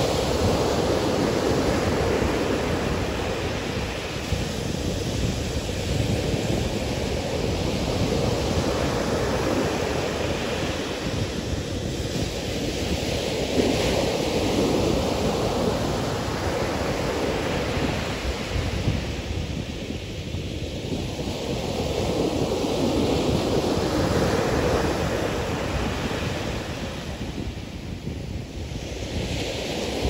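Ocean surf breaking on a beach: a continuous rushing wash that swells and eases with each wave set, every seven or eight seconds.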